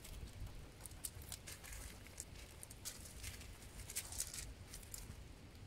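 A dog sniffing and nosing through loose gravel to find a buried scent, with small stones shifting and clicking in scattered short, sharp ticks.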